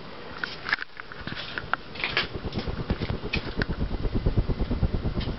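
1986 Hunter Original 52-inch ceiling fan with a cast-iron oil-bath motor running, its blades giving a fast, even low pulsing of moving air. The pulsing grows louder about two seconds in, with a few light clicks.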